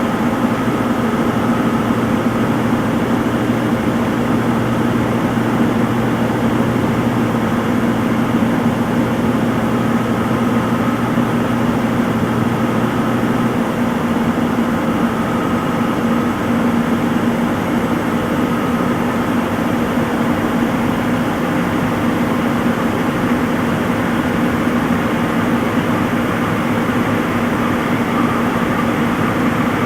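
Front-load washing machine in its spin cycle, drum spinning at steady high speed with a constant whirring hum; a low hum drops out about halfway through.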